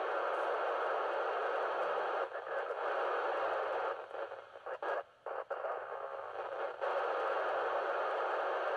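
FM amateur radio receiver tuned to the ISS downlink on 437.800 MHz, giving an open-squelch static hiss. The hiss thins and flickers out for a few moments in the middle, as a weak signal from the space station briefly quiets it.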